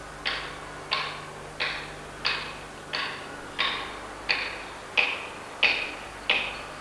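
Hammer blows on a chisel cutting granite: ten evenly spaced strikes, about three every two seconds, each with a short metallic ring.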